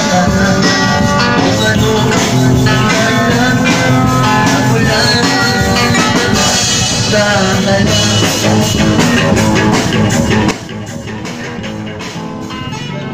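Live street band music: a child playing a drum kit alongside a man playing guitar. About ten seconds in, the music turns much quieter and carries on.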